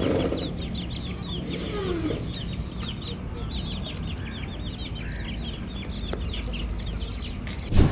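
Rapid high-pitched peeping from farmyard birds, several short notes a second, over a low steady rumble, with a sharp knock near the end.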